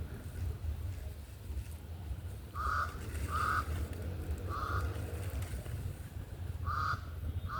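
A bird calling outdoors: five short calls, the first two close together, the rest spaced more widely, over a low steady rumble.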